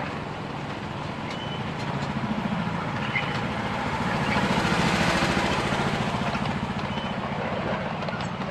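Miniature railway locomotive running past with a steady, fast, even beat that grows louder to about halfway and then fades away, with a few short high squeaks.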